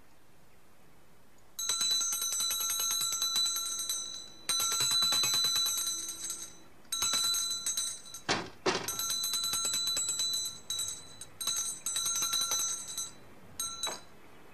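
A bell rung in repeated bursts, each a fast trill of rapid strikes, with short breaks between. About eight seconds in, a short falling swoop cuts across it.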